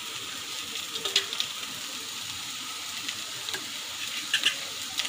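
Chopped vegetables sizzling in oil in a metal kadhai, a steady hiss, with a few light metal clicks of a spoon against the plate and pan as coriander leaves are scraped in.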